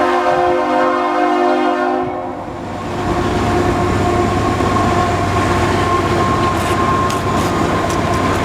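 Train horn sounding a held chord of several tones that stops about two seconds in, followed by the steady rumble of the train rolling past.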